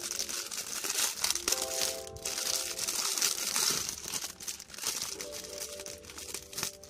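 A clear plastic packaging bag crinkling with many small crackles as it is handled and opened to take out a cable. Soft background music with held notes plays underneath.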